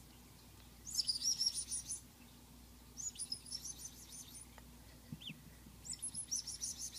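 Rapid 'psst, psst, psst' calls in three short bursts, made to coax a newly hatched duckling. Between the bursts the duckling gives a single short peep that falls in pitch.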